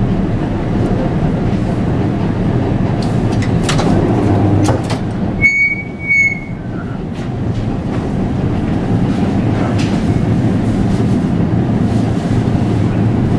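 Series 2800 tram running along the track, heard from the driver's cab: a steady rumble of wheels and motors with a few sharp clicks over the rails. About halfway through come two short high beeps half a second apart.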